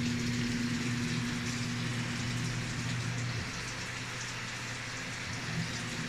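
Water pouring into the drum of a Samsung top-load washing machine, a steady splashing rush at full flow: the water supply that earlier only trickled in is working again, the fix for a 4C water-supply error.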